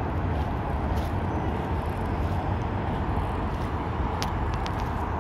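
Steady rumble of distant road traffic, with a few faint ticks about four seconds in.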